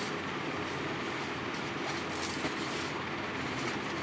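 Steady rumbling background noise, with faint crinkling of clear plastic wrap as hands handle a tin car-shaped pencil box, around the middle and again near the end.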